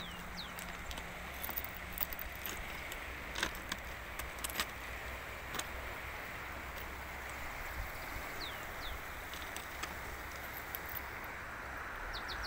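Steady rushing of a fast, swollen muddy river, with a few sharp clicks and several short falling bird chirps over it.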